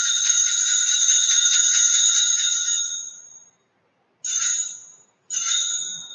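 Altar bells, a cluster of small hand bells, shaken in one long continuous jingle that fades out about three and a half seconds in, followed by two short shakes. These are the sanctus bells rung at the elevation of the chalice and the priest's genuflection during the consecration at Mass.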